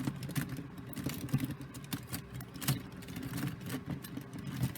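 Plastic pieces of a Siamese Rubik's Cube clicking irregularly as its faces are turned, with the repaired cube now turning smoothly again, over a steady low hum.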